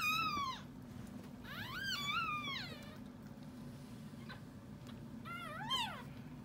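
Newborn puppies squealing: three high, thin cries, each rising and then falling in pitch, with a steady low hum underneath.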